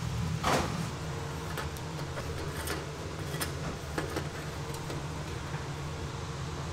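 Steady low hum of kitchen machinery, with a short noisy burst about half a second in and a few light clicks and taps as glazed fritters are set down on a stainless wire cooling rack.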